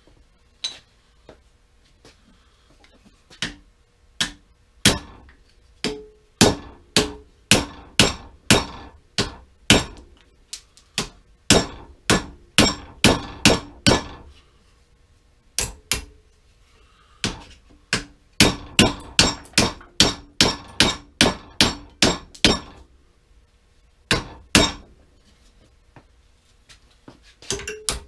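Hammer blows on a metal bar clamped in a bench vise, shaping it for a brick jointer: sharp, ringing metal strikes about two a second, in runs broken by short pauses.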